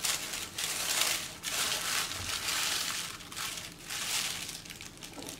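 Thin tissue paper crinkling and rustling as hands fold it back, in uneven rustles that grow fainter near the end.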